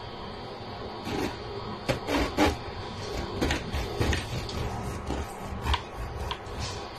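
A knife sawing back and forth through the crust of a home-made loaf, an uneven run of rasping strokes. A couple of short sharp knocks come near the end.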